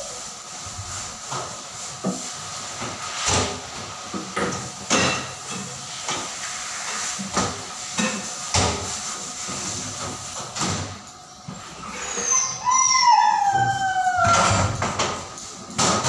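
Persian cat giving one long meow, falling in pitch, about twelve seconds in, over repeated short snips of grooming scissors trimming its fur.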